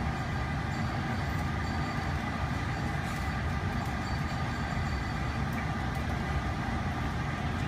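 Steady rumble and hiss of a laboratory fume hood's exhaust airflow, with a few faint ticks.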